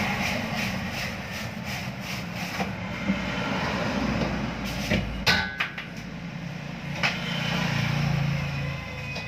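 A few sharp knocks and metallic clanks, one of them ringing briefly about halfway through, as things are handled inside the cabinet of an upright freezer, over a steady low motor hum.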